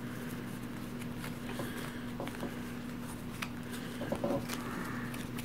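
Quiet handling of board-game cards being sorted into piles: a few faint light taps and slides, over a steady low hum.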